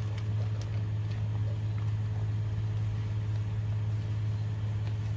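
A steady low mechanical hum at an even level, with faint scattered clicks over it.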